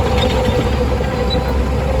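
Shantui DH17C2 crawler bulldozer working: a steady low diesel rumble, with the steel tracks creaking and clanking under a steady whine.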